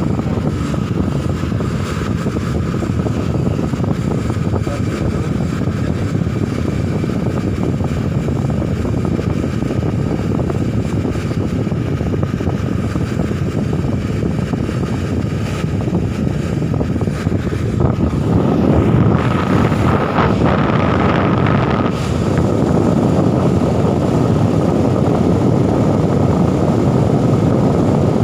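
HOWO truck's diesel engine running steadily, a low rumble heard from inside the cab, with a thin steady whine above it. The noise grows louder and brighter for a few seconds from about 18 seconds in.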